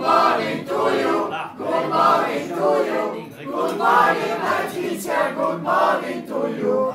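A mixed group of men and women singing together in chorus, in short phrases with brief breaks between them.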